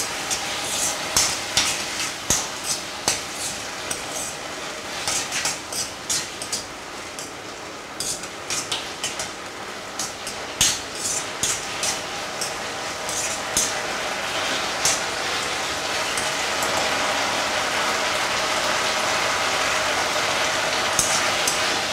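Metal spoon stirring and scraping onions and green peppers around a wok, with repeated clinks of the spoon against the pan over a steady sizzle of frying. The clinking stops about three-quarters of the way through, leaving the sizzle.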